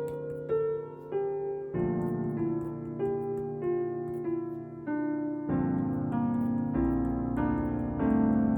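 Background piano music: a slow melody of single notes over held chords, with the harmony changing about two seconds in and again past the middle, where a deeper bass comes in.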